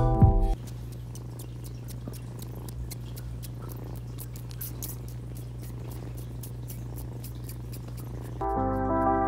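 A young kitten sucking on the toes of its own paw, making a quick, uneven run of soft wet clicks and smacks over a steady low hum. Background music cuts back in near the end.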